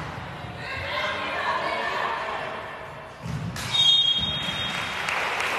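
Crowd and player voices echoing in a gymnasium during a basketball game, then a short, sharp referee's whistle blast about three and a half seconds in, the loudest sound.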